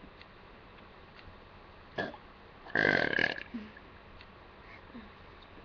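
A person burps once, loudly, about three seconds in: one rasping burp lasting about half a second, with a short sound about a second before it.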